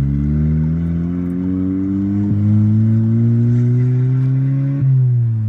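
A Volkswagen MK7 GTI's turbocharged 2.0-litre four-cylinder accelerating, its note climbing steadily, with brief breaks in the note about two seconds in and near the end. The car has been misfiring under full-throttle acceleration, traced to a bad ignition coil.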